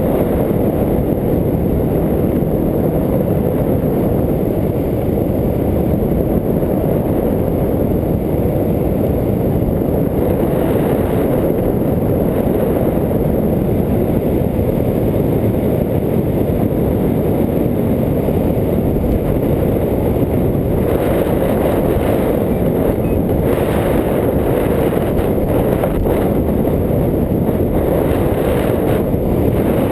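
Loud, steady rush of wind buffeting the microphone as the hang glider flies through the air.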